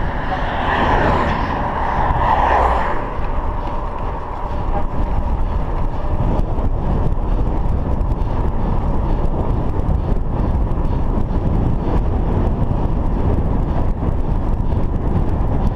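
A car passing in the opposite lane, its tyre and engine noise swelling and fading over the first three seconds. Then steady wind noise on the microphone from the moving bicycle.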